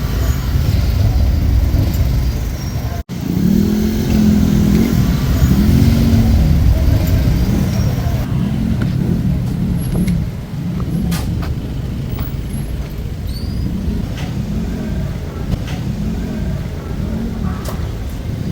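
Motor vehicle engines on a busy street, a heavy low rumble. After a brief cut-out about three seconds in, an engine's pitch rises and falls over and over, roughly once a second.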